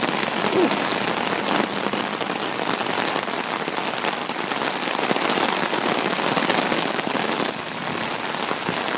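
Heavy thunderstorm rain falling hard and steadily, a dense patter of countless drops striking surfaces.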